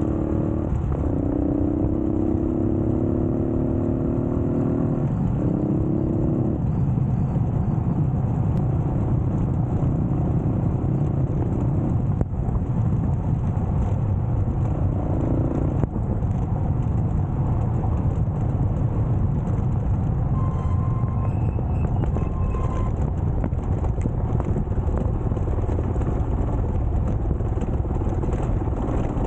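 Yamaha motorcycle engine accelerating, its note climbing and dropping at gear changes about a second in and again about five seconds in, then giving way to a steady low rumble.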